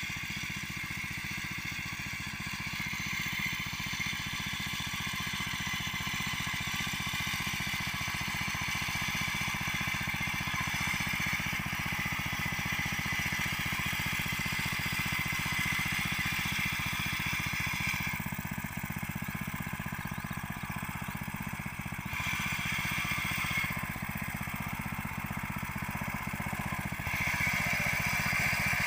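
Small air-cooled single-cylinder petrol engine of a walk-behind power weeder running steadily as the weeder works the soil. The tone changes abruptly several times.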